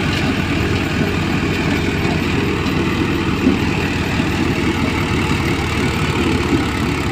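A Mahindra Arjun diesel tractor running steadily under load, driving a Dasmesh thresher through its PTO shaft as soybean plants are fed in. The tractor engine and the thresher's drum and fan blend into one loud, steady din.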